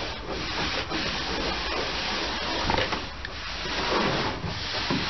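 Stiff broom scrubbing across a wooden deck: a scratchy hiss in repeated strokes with short breaks between them.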